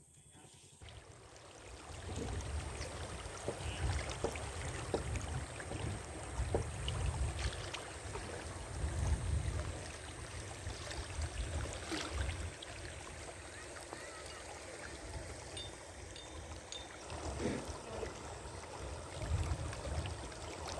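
Floodwater of the Ghaghara river rushing past: a steady noisy rush with a low rumble.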